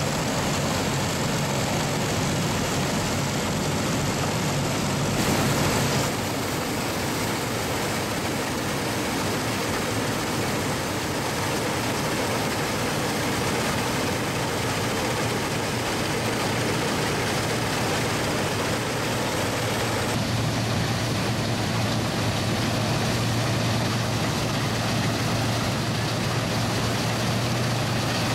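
Vintage Allis-Chalmers self-propelled combines running while harvesting grain: a steady engine hum under the even noise of the threshing machinery. The sound changes abruptly about six seconds in and again about twenty seconds in.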